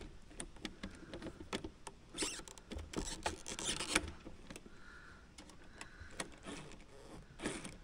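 Small clicks, taps and scrapes of a screwdriver and hard plastic parts as the rear axle and drive shaft of a radio-controlled FMS Toyota Land Cruiser FJ40 crawler are worked on by hand, busiest about two to four seconds in, with two faint short whirs near the middle.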